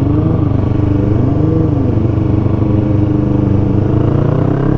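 Yamaha R3's parallel-twin engine running steadily in second gear while riding. Its pitch climbs near the end as the bike accelerates.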